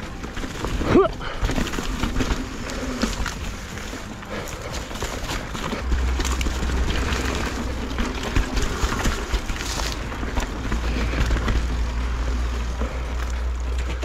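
Mountain bike being ridden fast down a rough dirt trail: tyre noise with a constant clatter of small knocks and rattles from the bike over roots and rocks. A brief louder sound rises in pitch about a second in, and a low rumble sets in about six seconds in.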